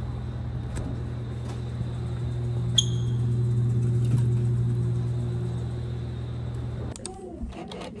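Steady hum of an open drinks fridge's cooling machinery running, with one bright clink about three seconds in as a metal drink can knocks against another can or the wire shelf. The hum stops abruptly about seven seconds in.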